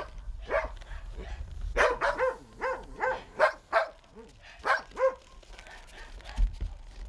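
Dogs barking: a run of about ten short barks, most of them bunched through the middle.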